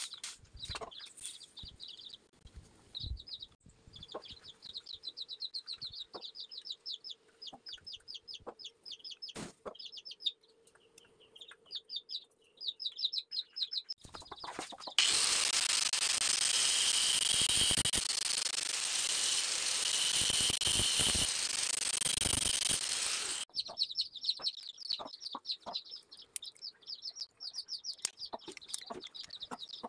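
Electric angle grinder running for about eight seconds, switched on and off abruptly in the middle of the stretch; it is the loudest sound. Around it, birds chirp rapidly and small metal pieces click as they are handled.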